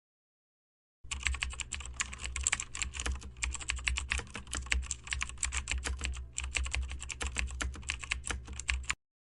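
Computer keyboard typing: rapid, irregular key clicks for about eight seconds, starting about a second in, with a brief pause around the middle.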